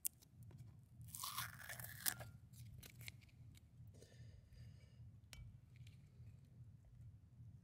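Faint handling noise of a painted brake caliper being picked up and touched: a short scraping rustle about a second in and a few light clicks, over a low steady hum.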